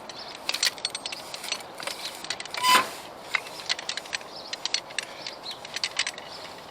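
Turf plug cutter being worked down into a bowling green: a string of short crunching and clicking sounds as it cuts through the turf, with one louder scrape and a brief squeak about two and a half seconds in.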